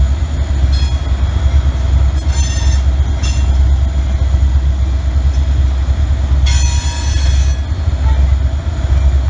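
Freight train of covered hopper cars rolling past: a steady low rumble of wheels on rail, broken four times by short, high-pitched wheel squeals, the last and longest about seven seconds in.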